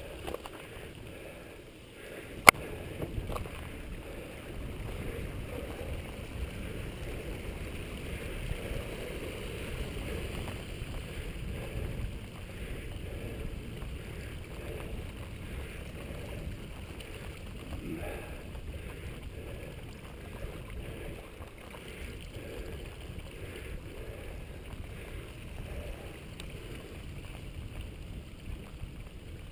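Mountain bike ridden on a dirt singletrack, heard as a steady low rumble of wind on the microphone and tyres rolling over the ground, with small rattles and knocks. A single sharp click about two and a half seconds in is the loudest sound.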